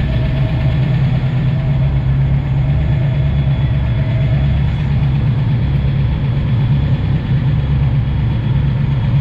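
A car engine idling steadily, a low, even drone with no revving.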